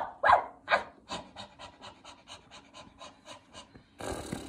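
Quick panting breaths like a dog's, loud at first, then fading and speeding up to about four a second. A steady noise sets in near the end.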